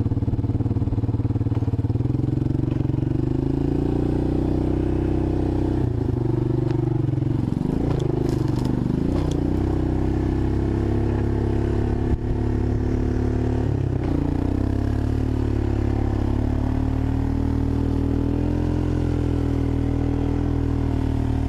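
1985 Honda ATC 250SX three-wheeler's single-cylinder engine running under way. The revs rise a couple of seconds in and swing up and down several times toward the middle, with one sharp knock about twelve seconds in.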